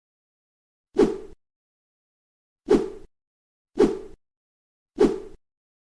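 Four short, dull thuds, each about a third of a second long, spaced about a second apart, with total silence between them.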